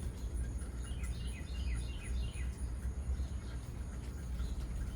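A songbird sings a quick run of about six down-slurred notes about a second in, over a steady, high, pulsing insect drone and a low outdoor rumble.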